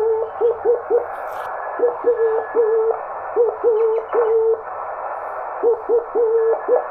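Morse code (CW) from a low-power homebrew single-valve transmitter, heard through a shortwave receiver as a keyed tone of slow dots and dashes over band hiss. Each dot and dash starts with a quick upward slide in pitch before settling: a deliberately chirpy signal, the sign of the oscillator's frequency shifting as the key closes.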